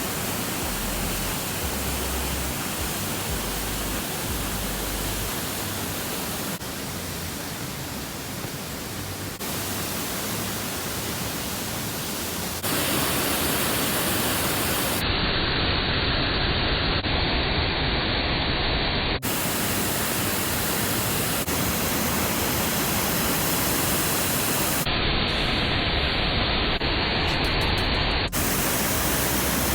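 Waterfall's water rushing, a steady loud hiss with no tune or rhythm; its tone changes abruptly several times where separate clips are joined.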